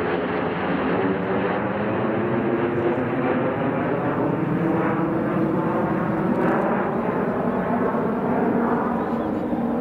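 Jet engines of the Mitsubishi X-2 Shinshin and an accompanying jet flying over together: a steady jet rumble whose pitch slowly glides as they pass.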